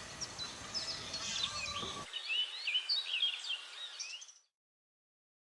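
Several wild forest birds chirping and whistling, a busy mix of short, quick calls over a light background hiss. It fades out about four seconds in, leaving dead silence.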